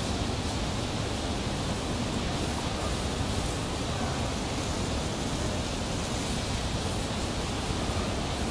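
Steady, even hiss of noise with no calls or distinct events.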